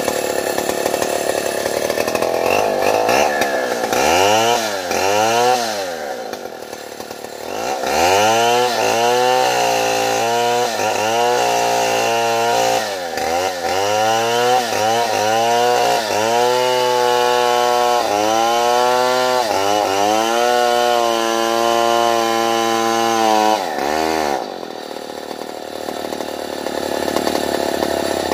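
Two-stroke gasoline chainsaw cutting into a felled durian log. The engine is revved up and down again and again, with long stretches held at high speed. It drops back briefly twice, about six seconds in and near the end.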